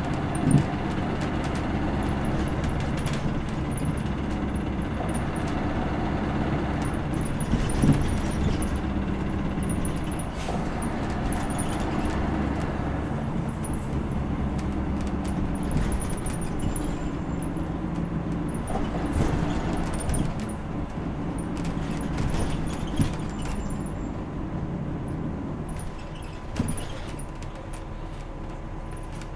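Riding inside a 2001 diesel city bus under way: the engine runs steadily under road noise, with occasional knocks and rattles from the body and fittings. The engine noise drops about 26 seconds in.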